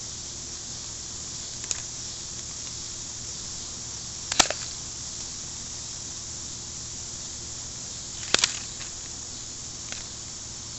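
M74DP airsoft gun fired single shots in semi-automatic mode, each a sharp snap, spaced a few seconds apart. The two loudest come about four and eight seconds in, with fainter clicks near two and ten seconds, over a steady hiss.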